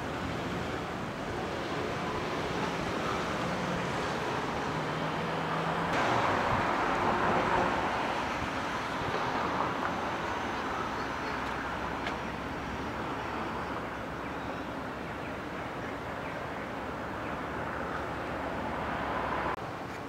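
Outdoor street noise with road traffic, steady throughout and swelling about six to eight seconds in as a vehicle passes.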